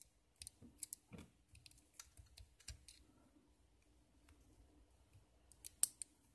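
Small screwdriver working a tiny screw into a toy hexacopter's plastic motor pod: a scatter of faint, light clicks and ticks, with a couple of sharper clicks near the end.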